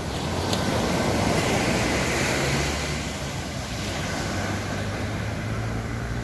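Sea surf washing ashore, a rushing noise that swells over the first few seconds and then settles, with wind on the microphone and a low steady hum underneath.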